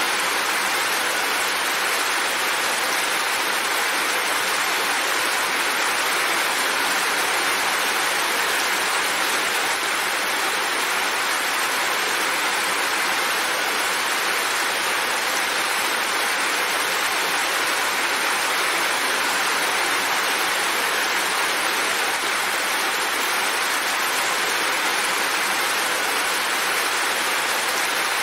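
Heavy rain falling steadily, with water pouring off a roof's edge: a constant, even hiss with no breaks or separate drops standing out.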